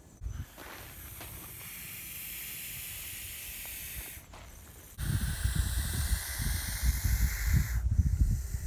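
An Eastern hognose snake hissing in its hooded defensive bluff display: two long, steady exhaled hisses, the first lasting about three seconds and the second about three seconds, the second stopping sharply. A low, irregular rumble on the microphone runs under the second hiss.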